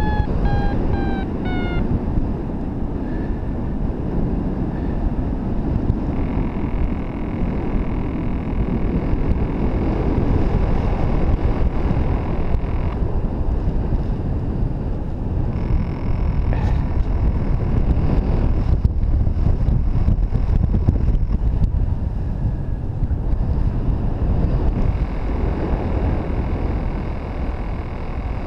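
Wind buffeting the camera microphone during paraglider flight, a steady loud rush. In the first two seconds a short series of electronic beeps falls slightly in pitch.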